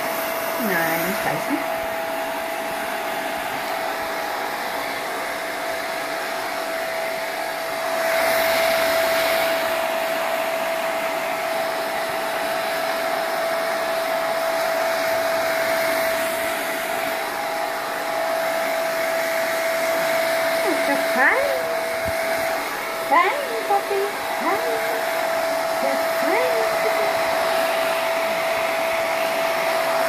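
Hand-held hair dryer blowing steadily with a constant whine, getting louder about eight seconds in. A few short gliding whines or squeaks rise and fall over it about two-thirds of the way through.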